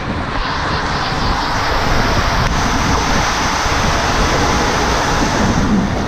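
Inflatable two-person raft rushing down an enclosed water-slide tube: a loud, steady rush of water spray and wind noise on the camera microphone.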